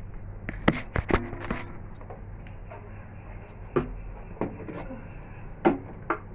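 Scattered sharp knocks and clinks from handling kitchen containers and the phone, a cluster of them about a second in and a few more later, over a steady low hum.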